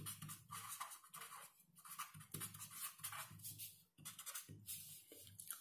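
Faint, irregular scratching of writing, in short strokes, over a low steady hum.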